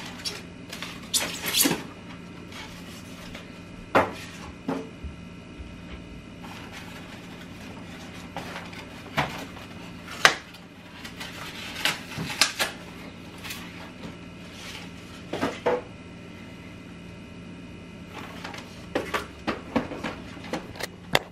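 Unboxing a new Nespresso coffee machine: cardboard and packaging being handled, with scattered knocks and clicks as parts are lifted out and set down, over a steady low hum.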